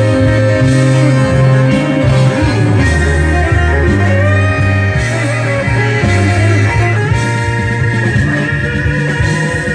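Blues guitar solo: long held notes and pitch bends over a band backing with a strong bass line.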